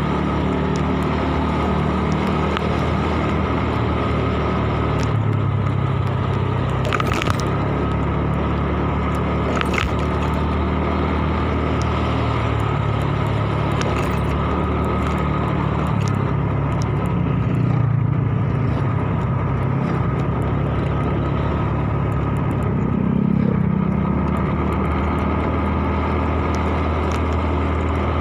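Motorcycle engine running steadily while riding, with road noise; its pitch shifts a little a few times as the speed changes. Two sharp clicks come about a third of the way through.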